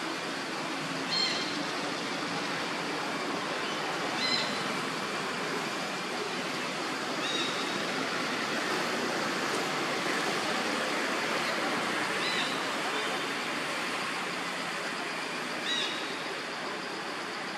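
Steady rushing outdoor background noise, with a short high chirp every three to four seconds, five in all.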